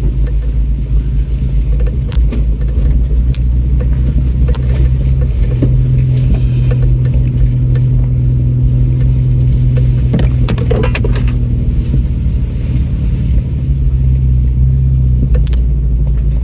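Off-road truck's engine running at low, steady revs while crawling a rough trail, with a few knocks and rattles about two-thirds of the way through.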